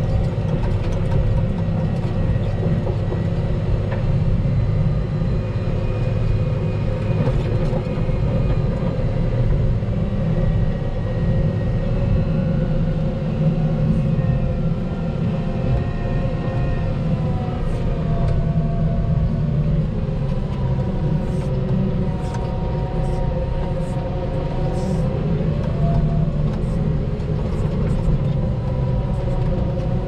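Volvo L60H wheel loader running steadily under load while its V-plow pushes through snow drifts: a constant low rumble with faint whining tones that slide slightly in pitch in the second half.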